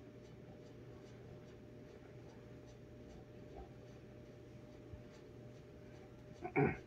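A faint steady hum with soft, evenly spaced ticking, then a short loud thump near the end.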